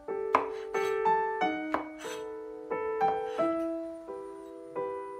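Background piano music, a slow melody of sustained notes. Under it come a few sharp knocks, the loudest about a third of a second in, from a cleaver coming down on a wooden cutting board.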